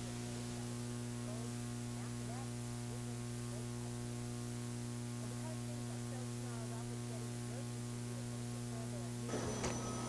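Steady electrical mains hum on the old broadcast audio, a constant low buzz with its overtones; faint background noise comes in near the end.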